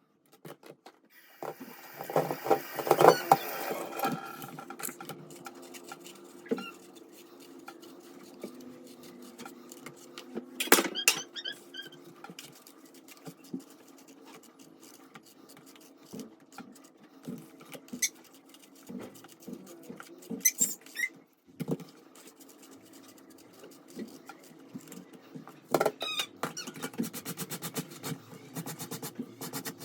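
Household handling sounds: scattered small knocks, clicks and rustles of objects being picked up and set down, with a quick run of rapid ticks near the end.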